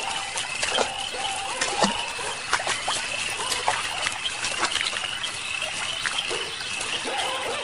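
Water trickling and splashing, with many small drip-like clicks and scattered short animal calls over a steady high-pitched drone, as of a flooded place at night.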